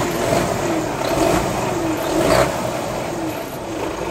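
Mercedes-Benz Actros MP4's OM 470 LA straight-six diesel engine running and being revved, the note swelling and falling back about three times.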